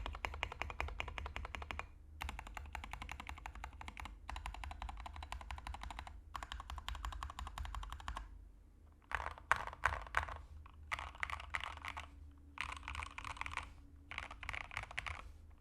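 Custom mechanical keyboard with lubed and filmed Gateron Milky Black switches, SA Retro PBT keycaps, an aluminium plate and a plastic case with no dampening foam, typed on in fast runs of rapid clacking keystrokes with short pauses between them. After about nine seconds the strokes come slower, in looser groups with some louder single presses.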